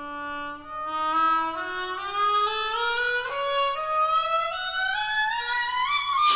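Solo oboe playing a line that climbs steadily in small pitch steps from low to high. Right at the end the tam-tam is struck, a sudden bright crash that rings on.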